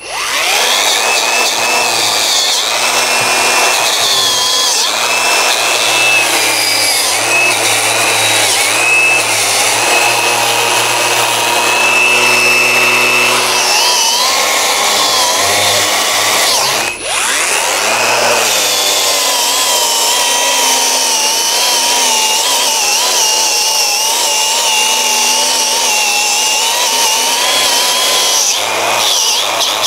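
Cordless drill and cordless angle grinder running wire brushes against rusty steel, scrubbing rust off a car's underbody and brake parts. The motors whine steadily, their pitch wobbling as the brush is pressed on, with a brief break about halfway through.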